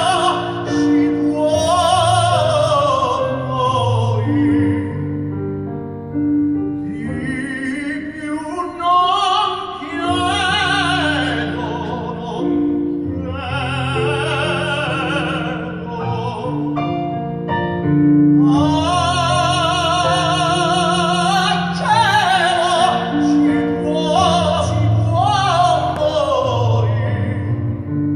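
Operatic tenor singing with a wide vibrato, holding long notes, accompanied by piano-voiced chords on a stage keyboard.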